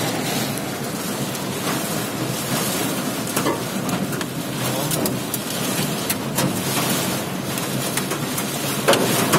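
Heavy rain pelting a car's roof and windows, heard from inside the cabin as a dense steady hiss with a few sharper clicks of hard drops.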